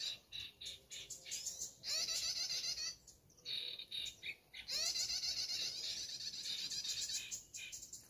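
Dense, rapid bird chirps and trills in bursts of a second or two with short gaps between them. These are bird-call recordings played from an MP3 speaker as a lure for trapping small songbirds.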